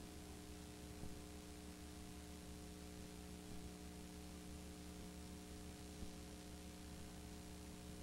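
Faint electrical mains hum with several steady tones, over a light hiss, on an otherwise silent soundtrack.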